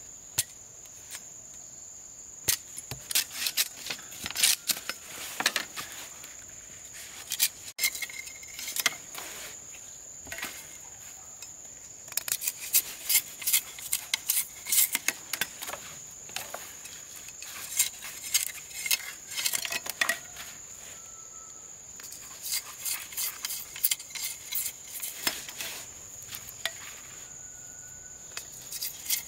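A steady high-pitched insect chorus, with irregular bursts of sharp clicks and taps from something being handled.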